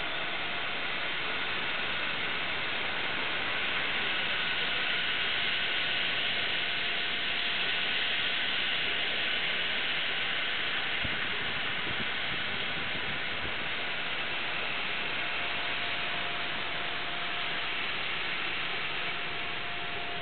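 CNC laser cutter cutting 3/8-inch stainless steel plate: a steady hiss with a faint steady tone under it, getting slightly brighter and louder a few seconds in.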